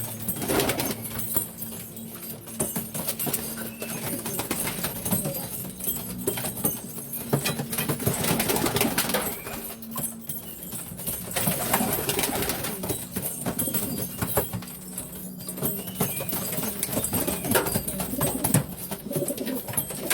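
Domestic pigeons cooing again and again in low murmuring calls, with scattered short clicks and rustles among them.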